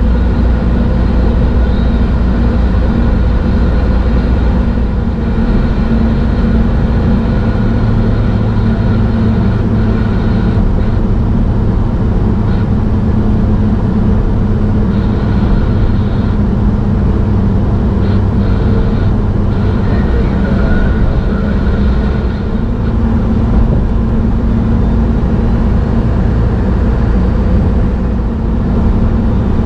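Steady in-cab drone of a 2000 Ford F350's 7.3L Power Stroke V8 turbo diesel cruising at highway speed, mixed with tyre and road noise.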